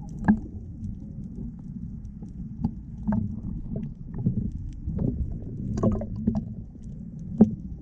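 Water sloshing against the hull of a glass-bottom boat: a steady low rumble with irregular sharp knocks and slaps, about eight of them, the loudest near the start and near the end.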